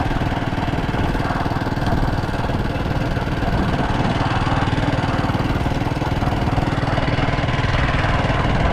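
Small vehicle engine running steadily as it travels along, with a fast, even throb.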